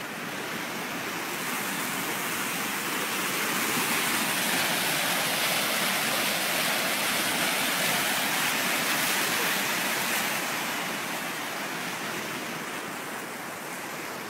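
Muddy flash-flood water rushing down a wide desert wadi, a steady churning rush that grows louder over the first few seconds, holds, then eases toward the end.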